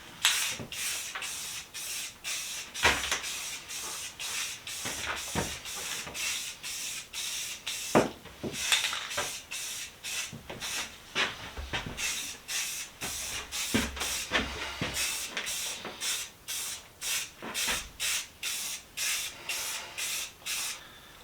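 Aerosol spray can of primer hissing in quick short bursts, about two or three a second, with a few sharper clicks among them.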